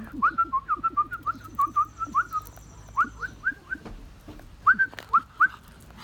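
A person whistling short rising chirps in quick runs to call a puppy over.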